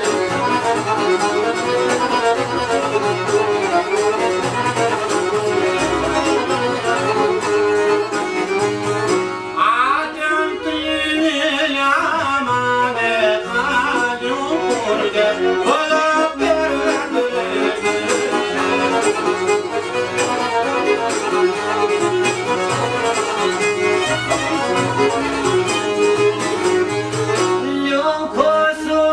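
Albanian folk ensemble playing, with violin, accordion and long-necked lutes over a steady low beat and men singing. From about 10 to 16 seconds in, a sliding, ornamented melody line stands out.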